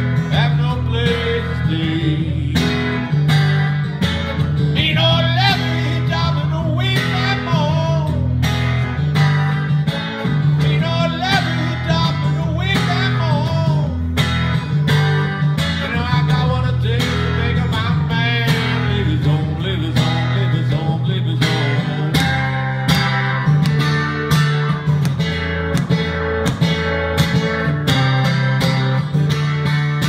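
Live acoustic country blues: an Eastman E10OM acoustic guitar strummed in a steady driving rhythm under a harmonica playing wailing, bending notes.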